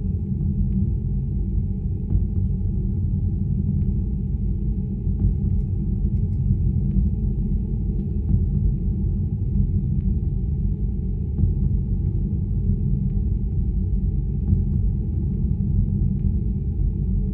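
Dark ambient noise drone: a thick, steady low rumble with no pauses, and faint scattered clicks over it.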